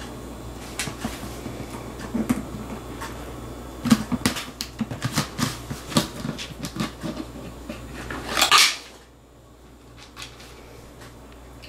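Cat nosing and pawing at a plastic jar of dry cat food: a string of irregular plastic knocks, taps and scrapes. About eight and a half seconds in comes a louder scraping rasp as the lid comes off. After it, fainter clicks as the cat starts eating the kibble inside.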